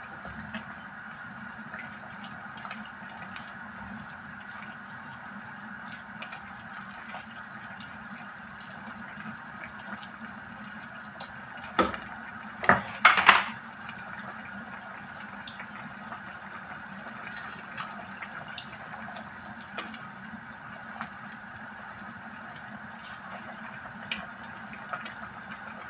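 Pot of tinolang manok broth with bok choy simmering on the stove, a steady watery hiss, as a spatula stirs through the leaves. Several sharp knocks of the spatula against the pot come about halfway through.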